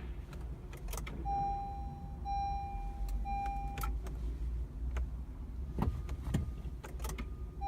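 2013 Honda Accord's warning chime beeping three times in a row, each beep about half a second long. Sharp clicks and two dull clunks follow in the second half, with no engine catching. This fits a car with a bad starter that will not crank.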